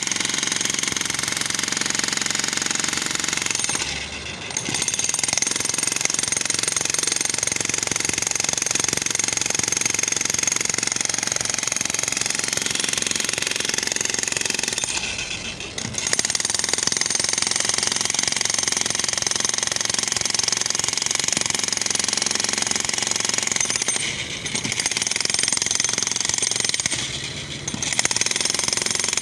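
Jackhammer hammering continuously at a rapid rate, with short breaks about four, fifteen, twenty-four and twenty-seven seconds in.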